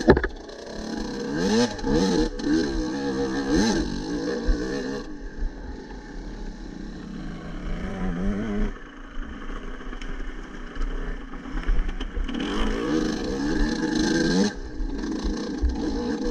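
Off-road motorcycle engine revving, its pitch climbing and dropping again and again as the throttle is worked, running quieter for several seconds in the middle before revving up and down again near the end. A sharp knock right at the start.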